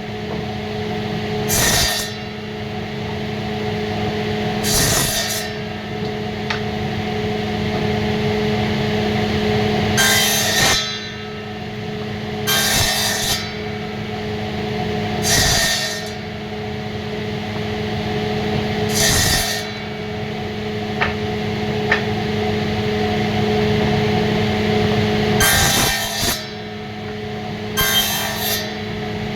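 Motor of an electric woodworking machine running steadily with a constant hum. Short, harsh bursts break in at irregular intervals of a few seconds, each about half a second long, as the wood is worked.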